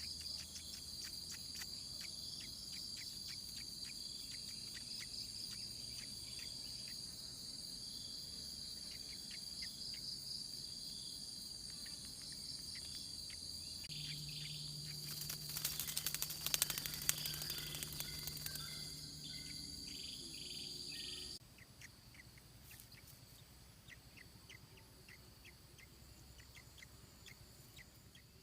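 A steady high-pitched insect trill, like crickets, with many short high chirps over it. A burst of crackling clicks comes a little past halfway, and the trill cuts off suddenly about three quarters of the way through, leaving fainter scattered chirps.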